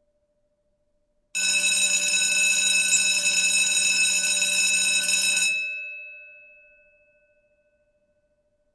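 School bell ringing for about four seconds, starting abruptly just over a second in, then stopping and ringing down over a couple of seconds.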